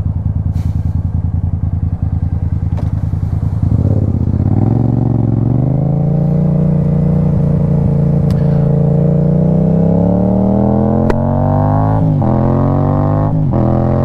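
Yamaha FZ-07's parallel-twin engine idling with an even pulse, then pulling away about four seconds in. The engine note climbs steadily under acceleration, with two quick upshifts near the end.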